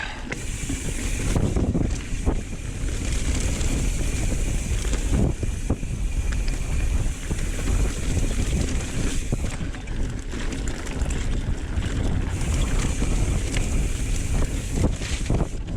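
Wind buffeting the microphone over the noise of a mountain bike being ridden fast on a dirt trail, with tyre rumble and scattered short knocks and rattles from the bike.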